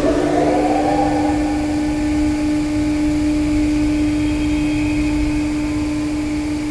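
Wind tunnel fan running: a whine that finishes climbing in pitch in the first second, then holds as a steady tone over a rush of air.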